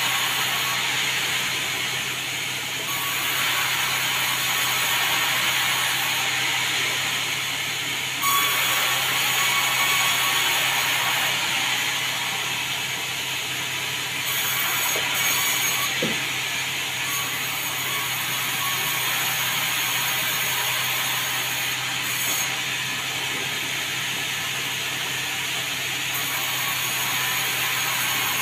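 Sawmill running steadily, its saw blade cutting through a log with a continuous hissing whir over a steady machine hum.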